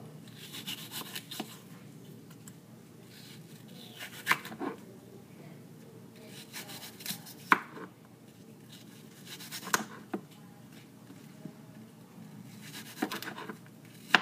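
Knife cutting a green apple into pieces on a wooden cutting board: a few sharp knocks of the blade on the board, a few seconds apart, with scraping and rubbing in between.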